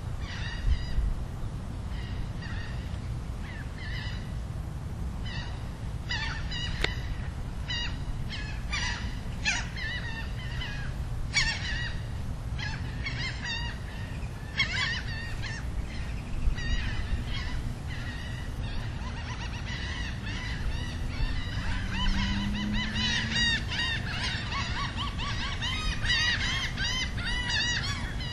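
Many birds calling, short overlapping calls that grow busier near the end, over a steady low rumble.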